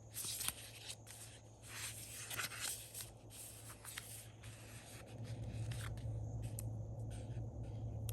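Hands working paper and stickers on a planner: rustling, rubbing and short scratchy strokes, busiest in the first four seconds, with a few light clicks later. A steady low hum runs underneath and gets louder about five seconds in.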